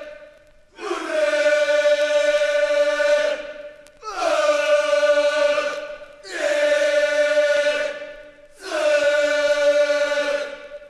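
A group of voices singing a Japanese school song in unison, four long drawn-out phrases of about two seconds each, every one starting with a short slide down onto a held note, with brief breaks for breath between them.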